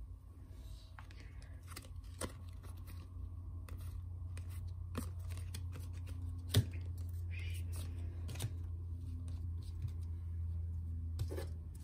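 Footy trading cards being handled on a wooden table: slid, shuffled and set down on piles with light clicks and ticks, and one sharper tap about halfway through. A steady low hum runs underneath.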